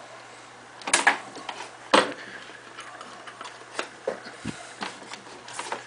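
Hard plastic clicks and knocks, the loudest about one and two seconds in, with a few fainter taps later, as the power strip's plug is handled and pushed into a plug adapter.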